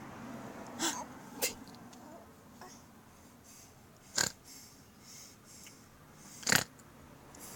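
A baby's short, noisy breaths, four of them, the loudest about four seconds in and near the end.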